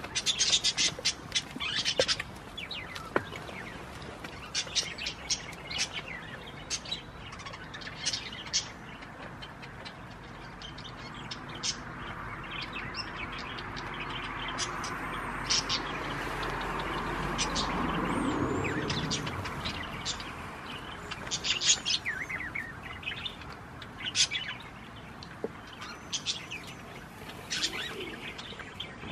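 Small birds chirping in short, scattered calls, with a broad rushing sound that swells and fades about halfway through.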